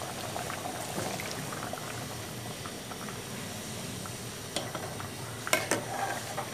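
Curry bubbling at a boil in a metal cooking pot while a metal ladle stirs through it, with soft scraping and clinking. Near the end the ladle knocks sharply against the pot a few times, the loudest sounds here.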